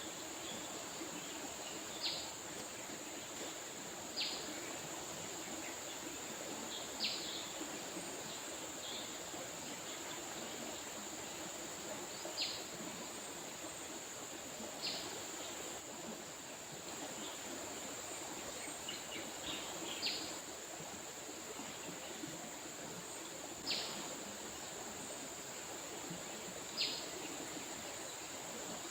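River water flowing steadily under a constant high insect drone, with a bird giving a short chirp every two to three seconds.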